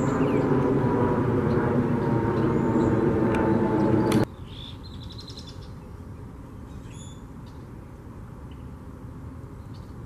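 A loud, steady low rumble with a faint, slowly falling tone that cuts off abruptly about four seconds in. After it, a much quieter outdoor background with small birds giving short high chirps and a brief trill.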